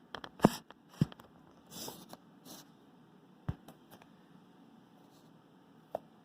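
Light handling noise: a handful of separate taps and clicks with a couple of short rustles in between.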